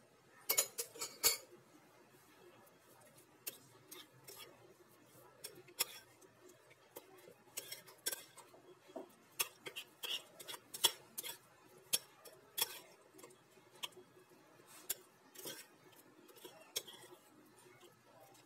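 Metal spoon clinking and scraping against a ceramic dish while stirring a thick, creamy tuna filling: irregular clinks, with a quick run of them about half a second in.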